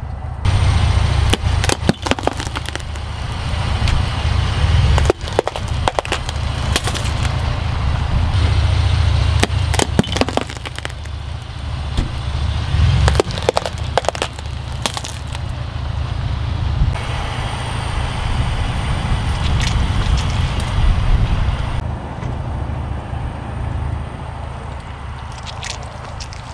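A car tyre rolling slowly onto objects and crushing them, among them a pumpkin, over the steady low rumble of the car. There are repeated sharp cracks and crunches, across several separate takes.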